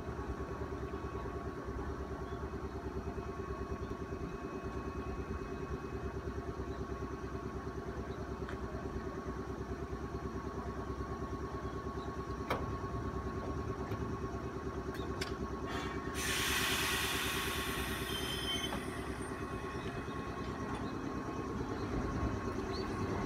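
JR West 105 series electric train standing at a platform, its equipment humming steadily with a fast, regular pulse. About sixteen seconds in, a burst of hiss rises over the hum for a few seconds.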